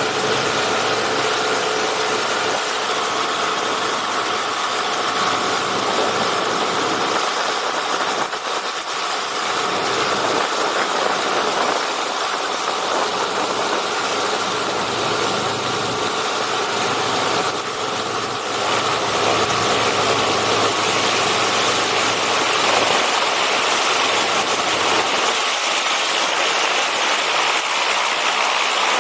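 Storch STOL light aircraft's engine and propeller running at low taxiing power: a steady drone with a strong hiss over it, dipping briefly twice.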